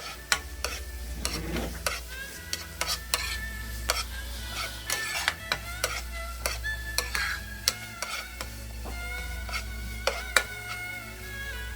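Onion, paprika and corn being stir-fried in a frying pan: a utensil scraping and knocking against the pan many times at an irregular pace over a light sizzle, with background music.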